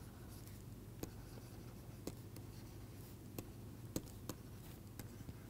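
Faint taps and light scratches of a stylus writing on a pen tablet, with a handful of scattered sharp ticks as the pen tip strikes the surface, over a faint steady low hum.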